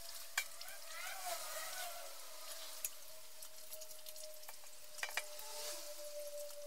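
Adhesive masking tape being peeled off a painted motorcycle fuel tank: a crackling, tearing rustle that swells about a second in and again near the end, with brief squeaks and a few sharp clicks. A faint steady tone runs underneath.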